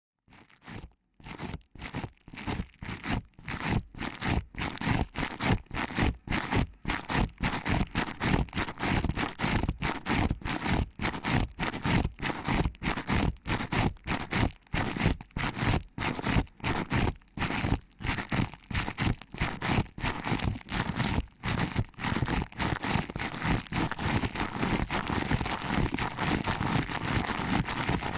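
Fingers pinching and rubbing a binaural ear microphone in quick, rhythmic strokes, a few each second, giving close, crunchy, rustling friction sounds. The strokes fade in over the first few seconds and then carry on steadily.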